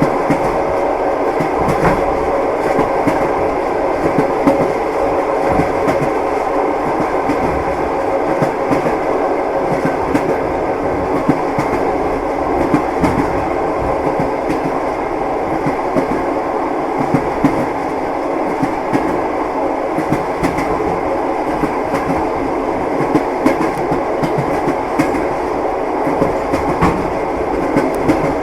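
Train running on rails: a steady rumble with the wheels knocking, clickety-clack, over the rail joints.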